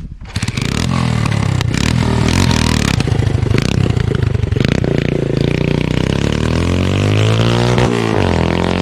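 Custom-modified motorcycle running through a handmade silencer, loud, starting about half a second in. The engine is revved, and its pitch rises and falls near the end.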